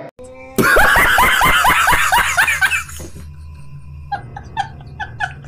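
Laughter sound effect: a loud burst of hearty laughing, a quick run of 'ha-ha' syllables lasting about two and a half seconds. From about four seconds in it is followed by a string of short, high squeaky notes repeating a few times a second.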